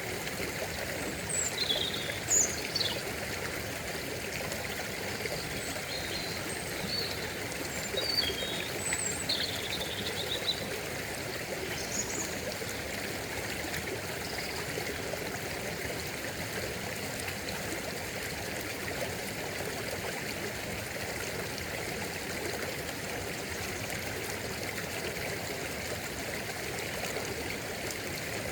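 A stream flowing and trickling steadily. A few short, high chirps come in during the first dozen seconds or so.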